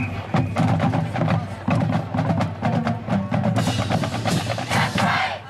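Marching band playing, with busy drum line percussion over a steady low bass line and a long cymbal wash in the last couple of seconds, then it stops abruptly.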